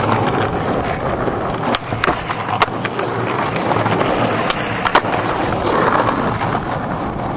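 Skateboard wheels rolling over rough asphalt, a steady rolling noise, broken by a few sharp clacks.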